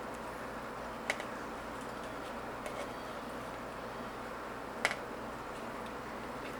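Spoon knocking against a bowl while thick yogurt is scooped in: a few light clicks, the loudest about five seconds in, over steady room hiss.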